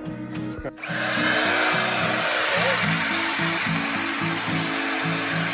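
Magnetic drill starting about a second in and running steadily as a 17 mm bit bores out a snapped steel keel bolt stud in a cast steel keel. Background guitar music plays throughout.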